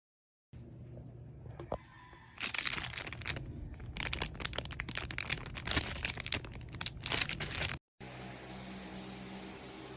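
Crinkling and crackling of plastic packaging being handled for about five seconds, then after an abrupt cut a steady low hum.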